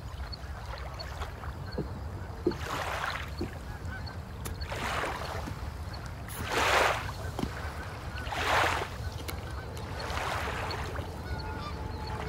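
Lakeside ambience: soft swells of rushing noise about every two seconds over a steady low wind rumble on the microphone, with faint bird calls near the end.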